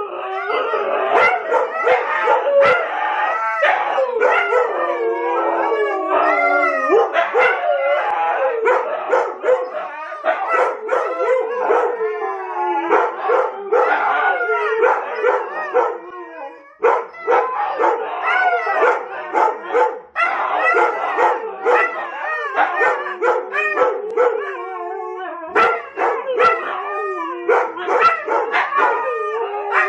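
A group of Siberian huskies howling together in chorus, with several wavering howls overlapping at once and short barks and yips scattered among them. The chorus thins briefly about 16 seconds in, then builds again.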